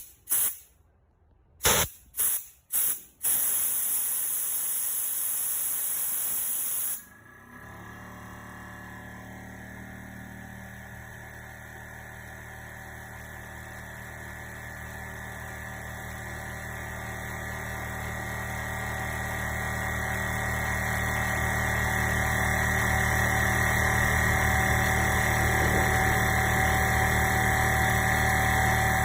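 Compressed air from a Makita AC461XL air compressor hissing out in four short bursts, then in a steady blast that cuts off about seven seconds in. The compressor's motor then runs steadily to refill the tank, growing louder over the next fifteen seconds or so.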